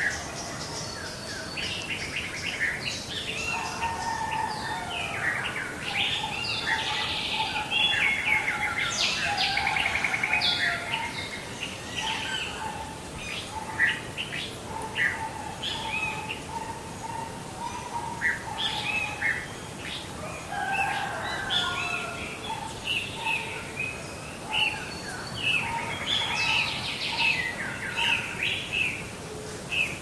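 Several wild birds singing at once in a mixed chorus of chirps, trills and whistled phrases. A lower note repeats steadily through the middle stretch.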